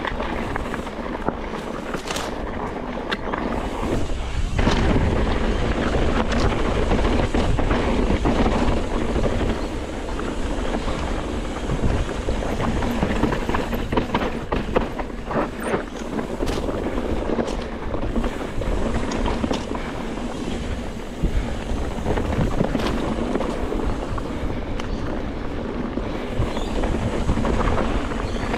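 Steady rushing noise with wind buffeting the microphone, wavering in level, with a few sharp clicks.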